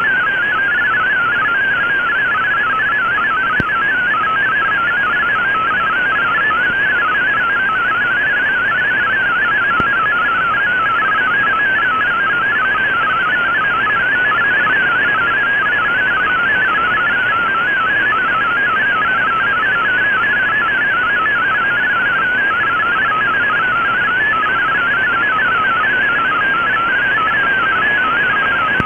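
MFSK32 digital text signal from a shortwave broadcast, played through an Icom IC-R8600 receiver: a fast, unbroken warble of shifting tones over a steady bed of shortwave hiss, carrying news text that is being decoded.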